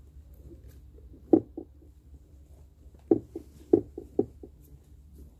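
A handful of short dull knocks over a steady low hum: one loud knock about a second in, then a quick cluster of four or five more a couple of seconds later.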